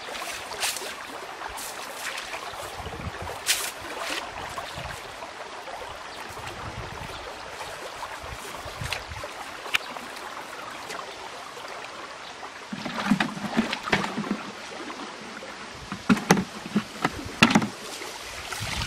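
Shallow water sloshing and splashing as a wet cast net is handled and gathered by hand, over a steady hiss of running water. There are scattered sharp clicks, and a busier run of splashes and knocks in the last third.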